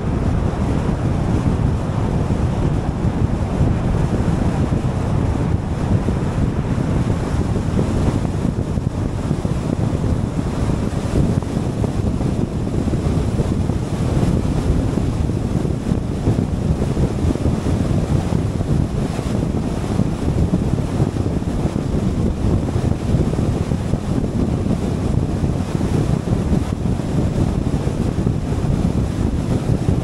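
Steady wind buffeting the microphone of a camera on a moving car, mixed with the low rumble of road and tyre noise at freeway speed.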